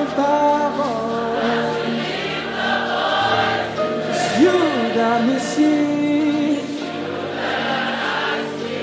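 Gospel worship music: voices singing long held notes that glide between pitches over a soft, steady instrumental backing.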